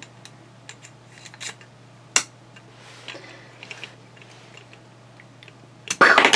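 Small clicks and taps of hard plastic as the Cyborg Happy Meal toy's projectile is fitted into its arm cannon and pushed out by thumb, the launcher not being spring-loaded, with a sharp click about two seconds in. Near the end a louder, brief clatter and rustle as the launched projectile lands among the plastic-bagged toys.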